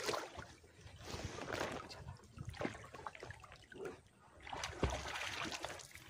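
River water sloshing and splashing in irregular bursts as a person wades chest-deep through it, loudest at the very start.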